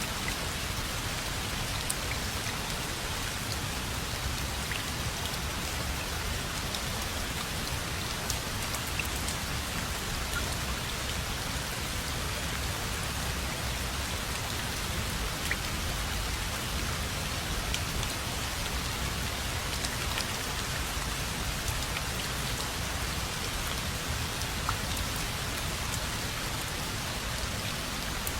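Steady rainfall, an even hiss of rain with scattered individual drops ticking on a surface and a low rumble underneath.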